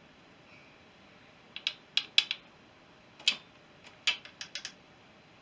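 A run of sharp, light clicks and taps, about a dozen in three seconds, from hand tools and metal parts being handled on a Honda CB350 motorcycle engine being stripped down.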